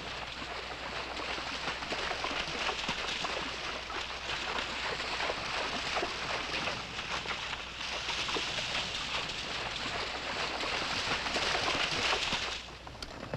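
Several horses wading through a shallow, rocky stream: a steady splashing and sloshing of hooves in water, which stops suddenly near the end.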